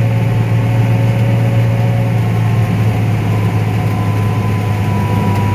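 Combine harvester running steadily while cutting corn: a constant low engine drone with a thin steady whine above it.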